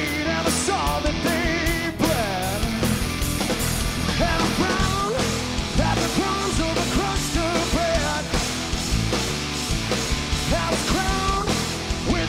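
Live rock band with a male lead singer, the vocal bending and gliding in pitch over loud, driving drums and amplified instruments.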